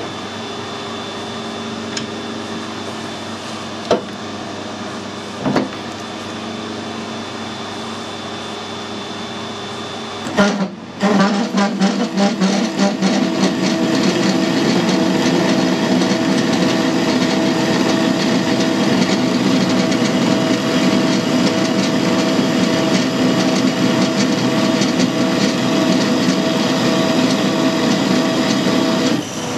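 Metal lathe running, with a few light clicks. About ten seconds in, a parting tool bites into a 100 mm bar of hard steel and cuts loudly: uneven at first, then a steady grinding cut with a ringing tone, until the feed stops just before the end. The lathe is working hard: the cut is deep and the chuck overhangs far from the spindle.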